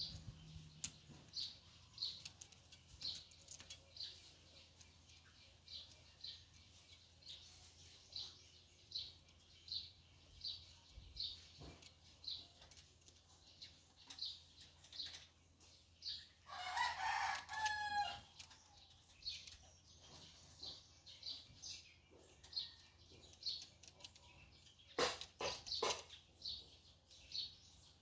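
A rooster crows once, loudly, about two-thirds of the way in, against a small bird's steady chirp repeated about twice a second. Near the end comes a short quick run of sharp clicks.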